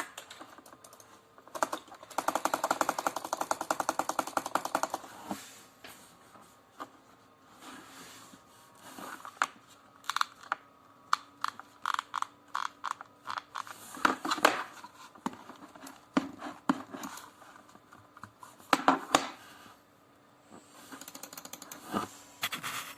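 Gaming mouse buttons being clicked and wiggled, testing them for play and crunch: a fast rattling run of clicks a couple of seconds in, then scattered single clicks and short clusters.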